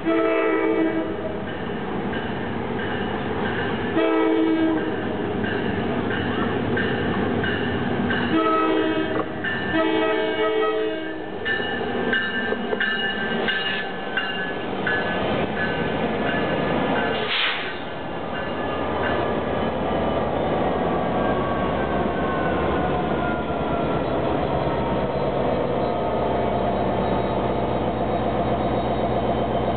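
New Jersey Transit PL42AC diesel locomotive sounding its multi-chime air horn in four blasts over the first eleven seconds. The train then rolls past, with a tone that slides slowly lower and a steady low drone that builds near the end.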